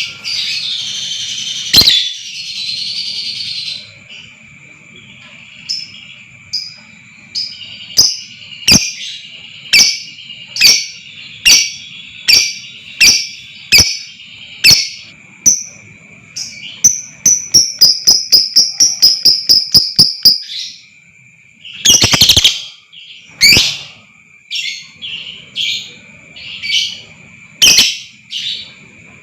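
Lovebird calling: sharp, high, shrill calls about one a second, breaking into a fast run of chirps near the middle, then more loud calls. A steady high tone runs underneath.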